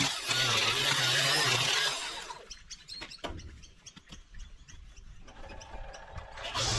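Stihl line trimmer edging, running steadily and then stopping about two seconds in. In the quiet that follows, birds chirp, and near the end a motor starts up again.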